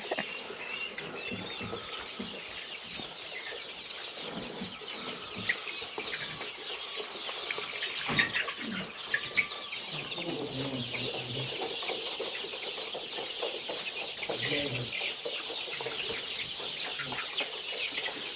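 A large flock of six-week-old chickens clucking and chattering together in a poultry house, a dense steady chorus of many short calls at once.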